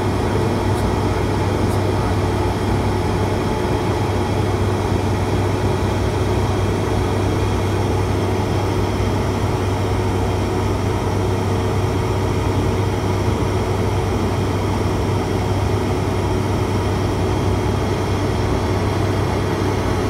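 ATR 72-600's twin turboprop engines and propellers droning steadily on approach, heard from inside the aircraft, with a strong low propeller hum.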